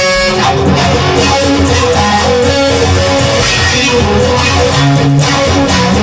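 Instrumental music led by an electric guitar, with steady low bass notes underneath.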